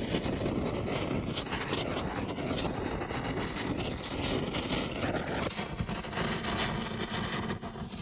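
Sound design for an animated logo intro: a dense rushing noise with fine crackle, whose character changes about five and a half seconds in, when a low steady hum comes in under it.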